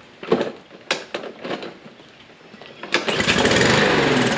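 A few short knocks, then the Briggs & Stratton mower engine fires about three seconds in and runs loudly, its speed sagging. It is an engine that starts but won't keep running.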